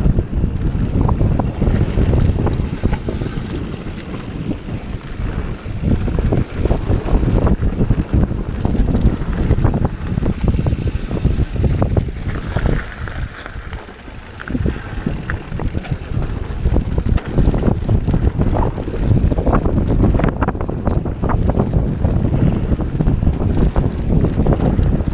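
Santa Cruz Hightower 27+ mountain bike descending hard-pack dirt singletrack at speed: a steady rumble of tyres and wind buffeting the camera microphone, with constant irregular knocks and rattles from the bike over bumps, easing briefly about halfway through.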